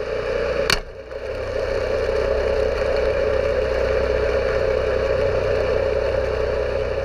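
Mercury Racing Verado 400R supercharged inline-six outboard running, heard underwater as a steady hum. A sharp click comes just under a second in, after which the sound swells and then holds steady.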